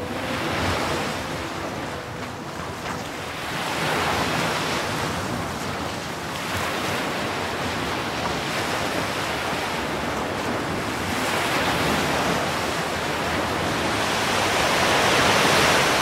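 Sea waves washing in and drawing back. The hiss of the surf swells and fades every few seconds and is loudest near the end.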